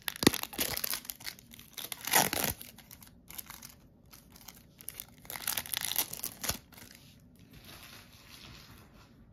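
Plastic shrink-wrap crinkling and tearing as it is worked off a sealed deck of trading cards. It comes in several rustling bursts, the loudest about two seconds in and another run from about five seconds, then softer crinkling.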